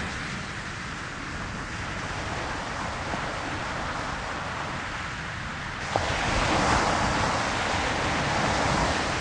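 A steady rushing noise with no music, like surf or wind. About six seconds in it steps up suddenly to a louder rush, with a click at the change.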